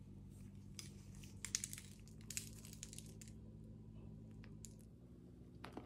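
Soft crackling and crinkling as a baked, cream-cheese-stuffed bagel bite is squeezed and torn open in gloved hands, loudest between about one and a half and two and a half seconds in, over a low steady hum. A short tick near the end.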